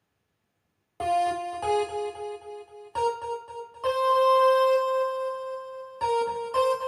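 Silence for about a second, then an electronic keyboard melody starts, holding long notes over a low beat that pulses underneath: a band's ringtone tune.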